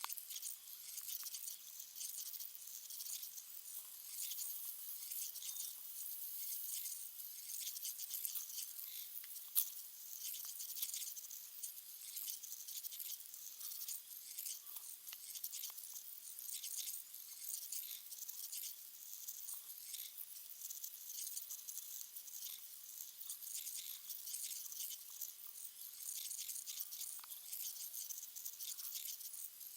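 Chuwi ILIFE V7S robot vacuum cleaner running: a steady high hiss with many small clicks and rattles, and one sharper click about a third of the way in.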